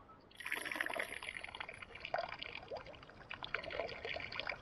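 A stream of urine from a Shewee's extension tube splashing into the water below, starting about half a second in. A higher hiss at the start of the stream fades out over the first couple of seconds.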